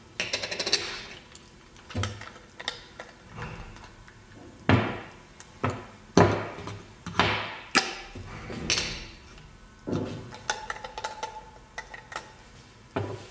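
Stainless steel manual salt and pepper grinder parts knocking and clattering on a wooden tabletop as they are handled, twisted apart and set down. There are about a dozen irregular knocks, starting with a quick rattle of clicks.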